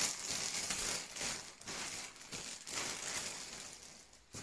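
Clear plastic packaging crinkling and rustling as it is pulled off a foam-wrapped parcel, irregular and fading toward the end, with a short knock at the very end.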